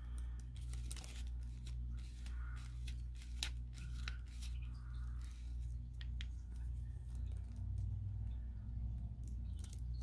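Scattered light clicks, scratches and rustles as a sheet of watercolour paper and a water brush pen are handled on a tabletop, over a steady low hum.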